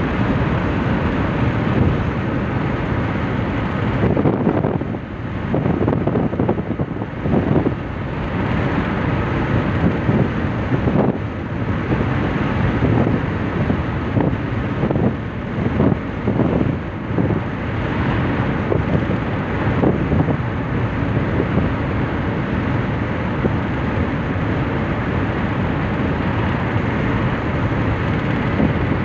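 Steady road and wind noise inside a car cruising along a motorway, with gusty wind noise on the microphone surging unevenly for several seconds after about four seconds in.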